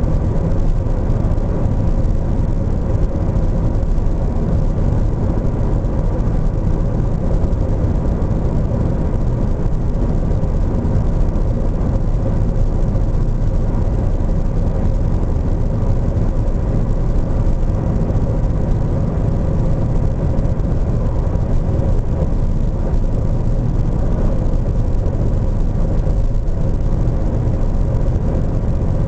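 Steady low drone of vehicle cabin noise from inside a moving vehicle, with a faint even hum, unchanging throughout.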